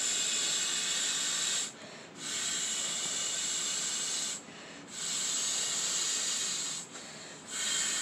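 A person blowing into the valve of an inflatable beach ball by mouth, a hissing rush of breath in long blows of about two seconds each, with short pauses between them to take a breath.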